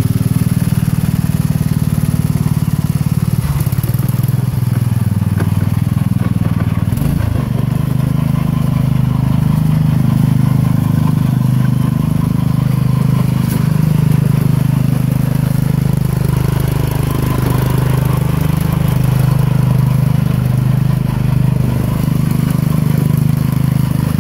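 16 hp Tecumseh OH160 single-cylinder engine of a 1970 Sears Suburban lawn tractor running steadily as the tractor is driven. About seven seconds in there is a brief low knock and the engine note shifts slightly.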